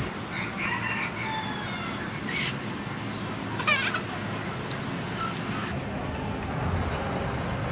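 Birds chirping, scattered short calls with one quick trilled call a little past halfway.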